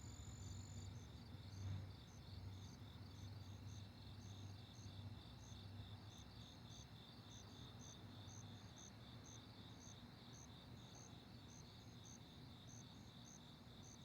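Faint night chorus of crickets chirping in a fast, even pulse, with a second, higher insect chirping irregularly over it; a steady high trill cuts off about a second in. A faint low hum lies underneath.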